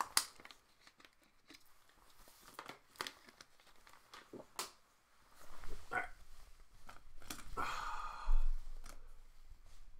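Trading-card pack wrappers being torn open and crinkled while cards are handled, with scattered sharp clicks and a dull bump about eight seconds in.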